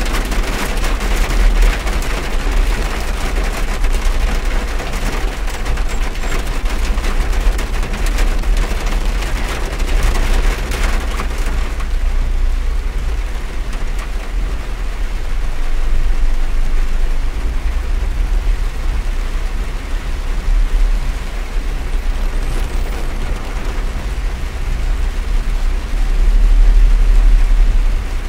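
Heavy rain drumming on a car's roof and windshield, heard from inside the cabin over a steady low rumble. The patter is densest for the first dozen seconds, then eases.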